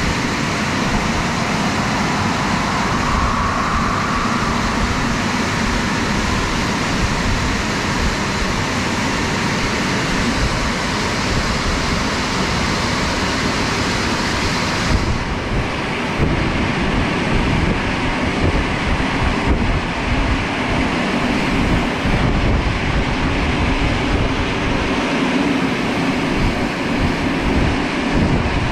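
Christ Cadis C17 rollover car wash running its drying blowers: a loud, steady rush of air with a low rumble. The highest part of the hiss drops away about halfway through.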